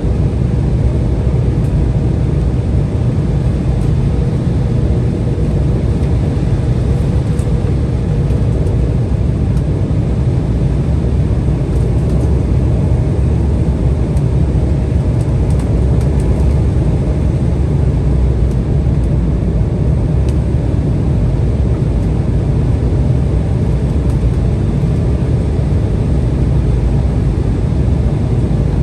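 Steady low roar inside the cabin of an Embraer 175 airliner in flight: its twin turbofan engines and the airflow over the fuselage.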